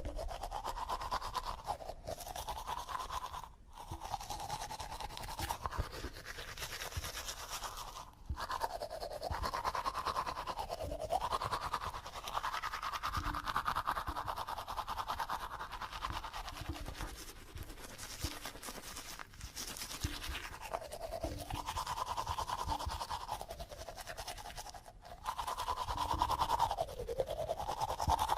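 Electric toothbrush running while brushing teeth: a steady buzzing hum that rises and falls in pitch as the brush is pressed and moved, with scrubbing noise over it. It stops briefly a few times.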